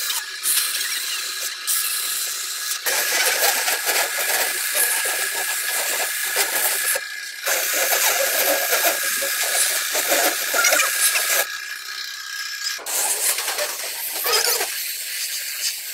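Compressed-air paint spray gun hissing as it sprays, in several short stretches that change abruptly from one to the next.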